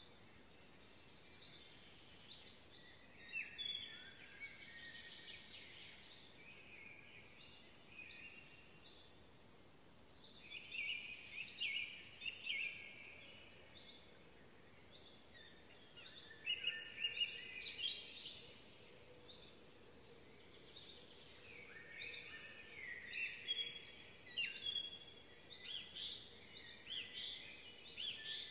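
Songbirds singing outdoors in several bouts of short, high-pitched chirping phrases with pauses between them, over a faint steady background hiss.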